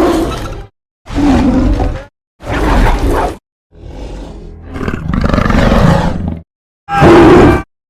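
A series of five demonic monster roars, each about a second long with short silent gaps between them; the fourth starts lower and quieter and builds into a longer full roar.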